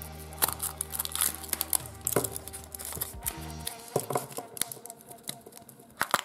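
Foil wrapper of a Kinder Surprise chocolate egg crinkling as it is peeled off and the chocolate shell broken, then the yellow plastic toy capsule being handled. A sharp click near the end as the capsule is pried open.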